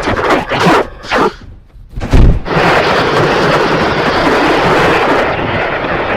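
Heavily distorted, effects-processed logo jingle audio: a run of short, loud blasts, a heavy boom about two seconds in, then a sustained loud, harsh noise.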